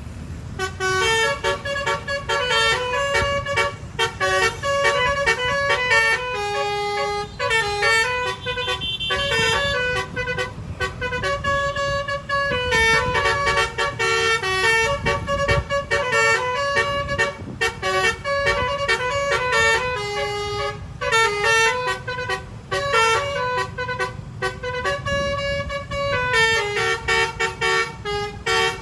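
Telolet basuri multi-trumpet air horn driven by a DAV module, playing a fast melody of short, quickly changing notes in several phrases with brief breaks, over a low rumble.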